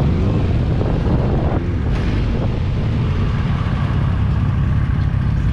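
Motorcycle engine running steadily at low speed while riding through city traffic.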